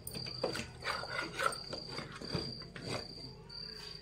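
A cricket trilling steadily, a high thin tone in long runs broken by short gaps. Over it come several knocks and scrapes of a spoon on a plate as the nalli nihari is served.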